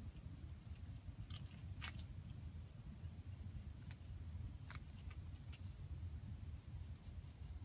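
Quiet outdoor background: a steady low rumble with about five faint, short clicks scattered through it.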